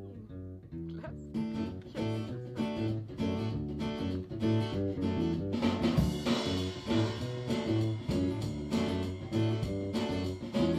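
Background music: guitar with a steady beat that sets in about a second in.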